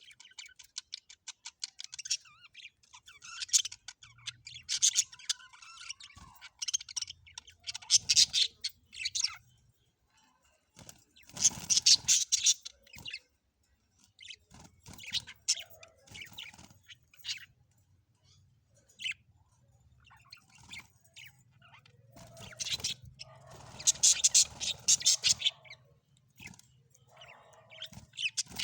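Budgerigars chattering in bouts of rapid chirps, each a second or two long, with quiet gaps between them. The loudest bouts come about 8, 12 and 24 seconds in.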